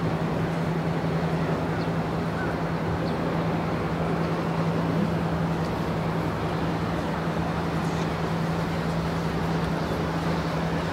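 Boat engine running with a steady, unchanging drone, over a wash of water noise.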